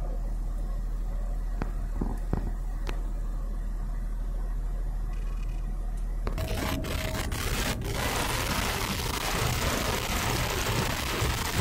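A steady low rumble with a few faint clicks, then an abrupt change about six seconds in to the even road and engine noise of a car driving, heard from inside the cabin.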